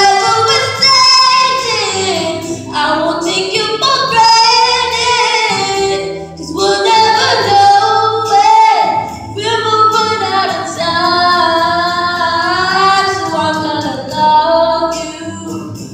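A girl singing a song into a handheld microphone, amplified, holding some notes long and bending others.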